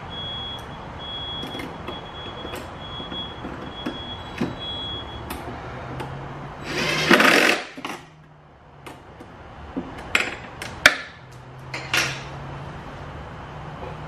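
Cordless impact driver with a hex bit hammering briefly, about seven seconds in, as it drives a caster bolt. Sharp metallic clicks and clatters of parts and tool handling follow.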